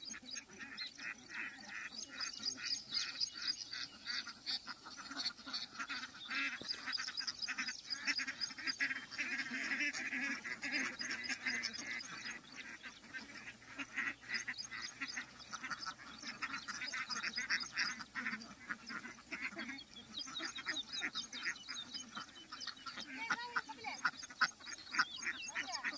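Large flock of domestic ducks quacking continuously as they feed, many short calls overlapping into a steady chatter.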